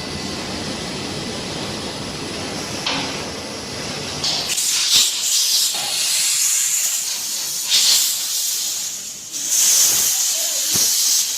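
Compressed air hissing from a pneumatic machine, surging louder three times in the second half. A steady, lower machine noise fills the first few seconds.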